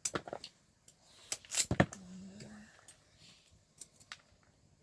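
Several sharp clicks and knocks of objects being handled, loudest a little under two seconds in, followed by a short low hum.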